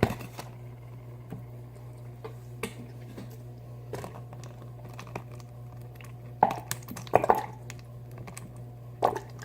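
Light clicks and taps of small metal fishing hooks and a container being handled on a tabletop, with a few louder knocks later on. A steady low hum runs underneath.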